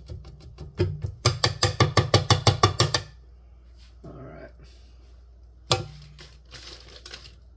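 A silicone spatula knocking and scraping cake batter off a stand mixer's flat beater and stainless steel bowl: a quick run of about a dozen sharp taps, around six a second, then a single knock near the end.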